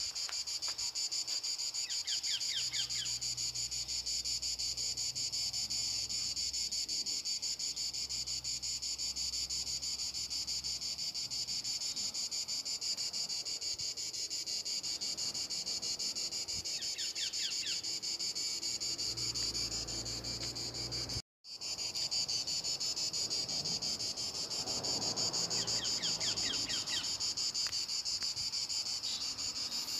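A steady, high-pitched chorus of insects chirping, with a brief break about two-thirds of the way through.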